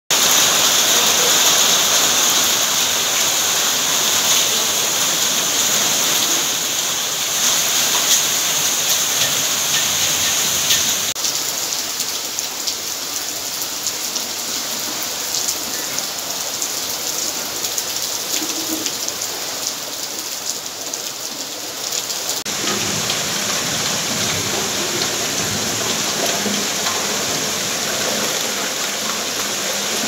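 Heavy rain falling steadily on corrugated tin roofing, with water streaming off the roof edge. The sound shifts abruptly in character about a third of the way in and again about two-thirds in.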